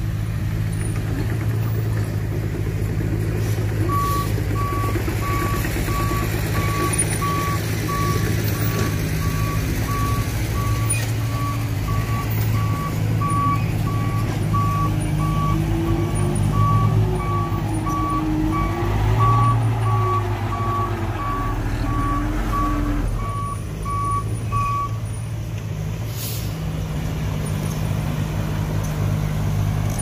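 Heavy diesel engine of an earthmoving vehicle running steadily, with a reversing alarm beeping about twice a second from about four seconds in, stopping a few seconds before the end. Midway the engine pitch rises and falls a few times.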